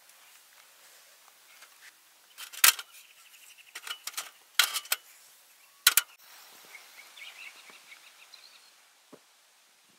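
Sharp snaps and knocks of dry twigs being broken and fed into a small folding steel twig stove while a fire is laid and lit: a handful of loud cracks about a second apart in the middle, some of them doubled.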